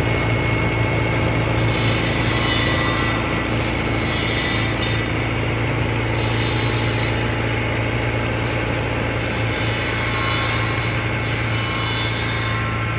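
Old farm tractor engine running steadily at a constant speed, with a higher hiss that swells and fades every couple of seconds.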